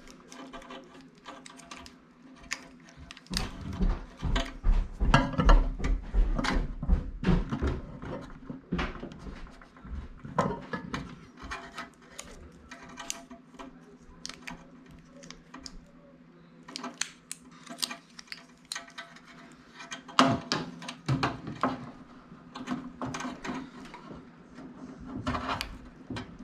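Clicks, knocks and thumps of a microwave turntable motor and its small parts being handled and worked apart by hand, with a run of heavier thumps and rattles in the first ten seconds or so, quieter scattered clicks in the middle, and more handling clicks near the end.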